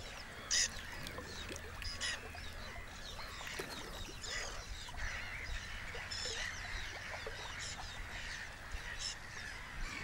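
Many birds calling at once: a dense chorus of short harsh calls and chirps, with one louder call about half a second in.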